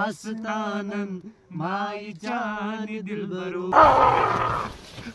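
A man singing or chanting in drawn-out, held notes, the pitch stepping between sustained tones. About four seconds in, a loud, rough burst of noise lasting about a second cuts across it.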